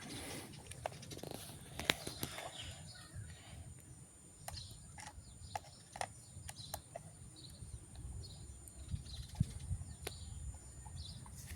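Scattered light clicks and taps of plastic parts being handled on a remote-control rock crawler toy truck, with faint short bird chirps in the background.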